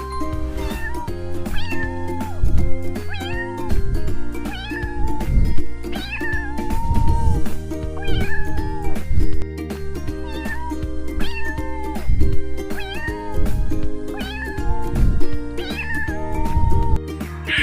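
Domestic cat meowing over and over, short calls about one a second, over background music.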